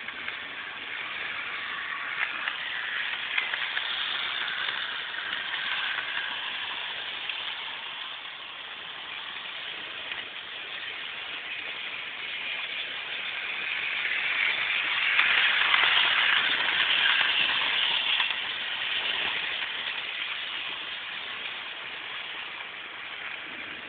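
Street traffic noise picked up on a mobile phone, with passing vehicles swelling in level: a smaller rise around four seconds in and the loudest pass about fifteen to eighteen seconds in.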